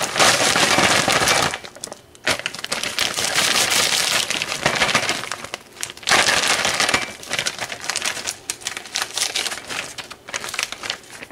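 Crushed Oreo cookie crumbs being tipped and scraped into a ceramic casserole dish: a dry rustle in several bursts with short pauses, then many small clicks and taps near the end.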